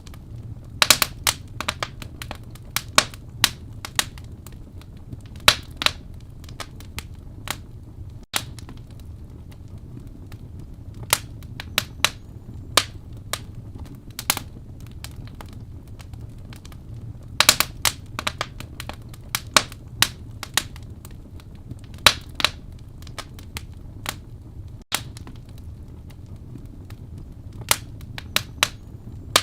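Wood fire burning in a fireplace: irregular sharp crackles and pops over a steady low rumble of the flames, with small clusters of pops about a second in, near 17 seconds and near 22 seconds.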